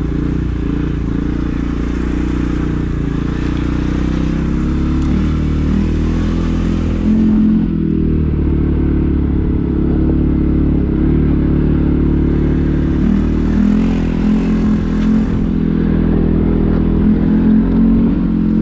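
CFMoto 450S ATV engine running steadily as the quad rolls along a dirt track.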